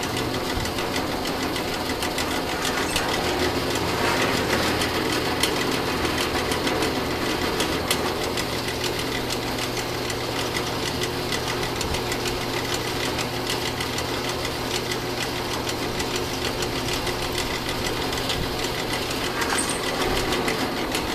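Drill press running steadily, its number 7 twist bit drilling through quarter-inch steel angle iron.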